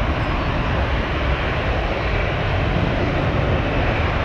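Jet airliner engines running loud and steady: a deep rumble with a hiss over it.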